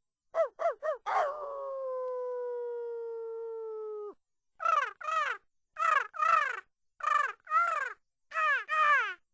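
Series of animal calls: three quick rising-and-falling calls, then one long held call that sags slightly in pitch for about three seconds and cuts off, then four pairs of short calls sliding down in pitch.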